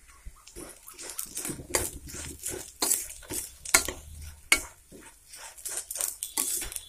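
Steel spatula scraping and tapping against a stainless steel kadai while stirring vermicelli and flattened rice (poha) as they roast. Quick, irregular strokes, about two or three a second.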